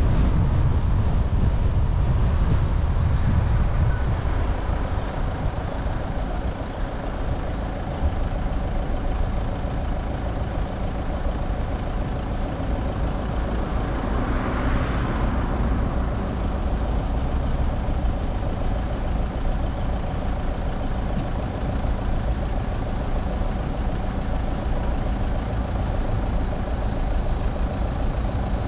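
Car on the move: steady road, tyre and engine rumble. About halfway through, a louder hiss swells up and fades away.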